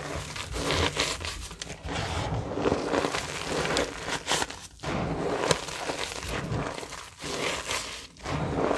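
Gloved hands pressing and squeezing crumbled reformed gym chalk powder: soft crunching and rustling in irregular squeezes, with a few sharper crunches and brief pauses.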